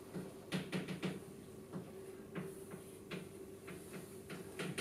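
Chalk writing on a blackboard: faint, irregular taps and short scratches as symbols are written, over a steady low hum.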